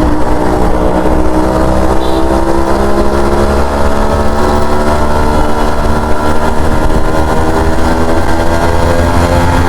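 Yamaha RX100's two-stroke single-cylinder engine running under way, its note steady and drifting slowly lower, with a brief dip and rise in pitch near the end. A low rumble of wind and road runs underneath.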